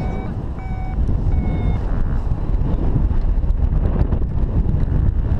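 Paragliding variometer beeping three times in the first two seconds, the short tones it gives when the glider is climbing in lift, then falling silent. Wind rushes loudly over the microphone from the glider's airspeed throughout.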